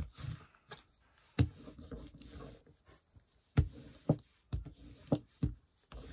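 A series of about ten short, irregular soft thumps and knocks, with a longer rustle near the start. These are crafting materials (lace, paper, stamp) being handled and pressed on a tabletop.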